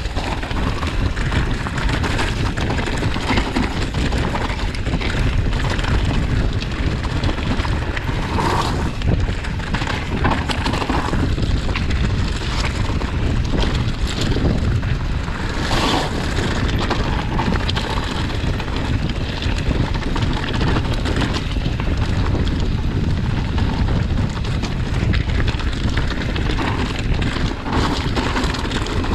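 Wind rumbling on the microphone over the crunch and rattle of mountain bike tyres rolling fast over a loose, rocky trail, steady and loud throughout.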